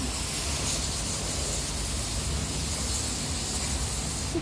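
Steady hiss of a high-pressure car-wash spray wand, cutting off suddenly at the very end.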